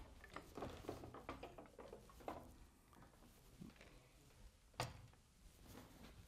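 Faint knocks, clicks and rustles of a Columbian hand printing press being opened after a pull: the tympan raised and the printed sheet taken off, with one sharper knock about five seconds in.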